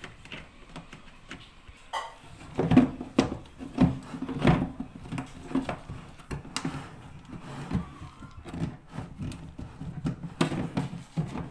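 Irregular knocks and clunks, like parts being handled and set down, loudest in a cluster a few seconds in and again near the end.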